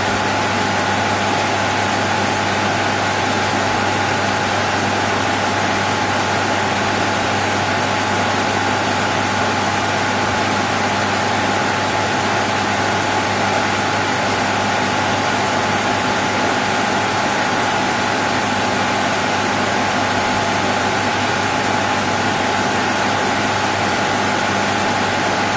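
Server-room ambience: computer cooling fans rushing with a constant electrical buzz and a steady whine on top, unchanging throughout.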